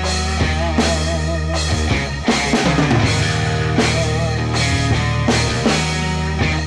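Rock music with a drum kit keeping a steady beat, a strong hit about every three-quarters of a second under sustained bass and guitar.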